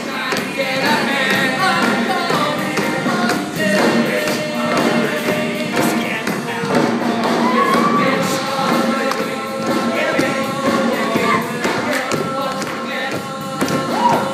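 Live rock-musical number: a male ensemble sings loudly through handheld microphones over band backing. Repeated thuds of stamping feet and jumping on the wooden stage and chairs run through the song.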